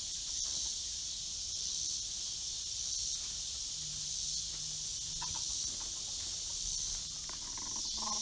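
A steady high-pitched drone of insects, with faint short low calls from chickens about halfway through and a few clucks starting near the end.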